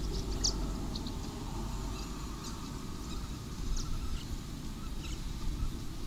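Birds calling: a scattering of short, high chirps and calls over a steady low rumble.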